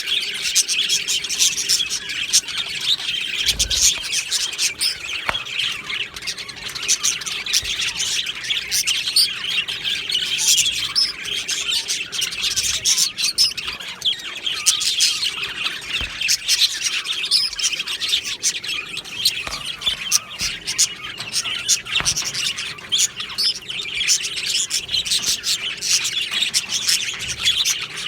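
A flock of budgerigars chirping and warbling continuously, many birds at once in a dense, unbroken chatter.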